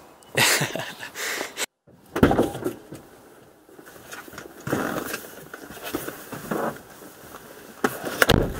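Car front seat being tipped forward for access to the rear: a series of short knocks and clicks from the seat latch and backrest, with rustling, the loudest just before the end.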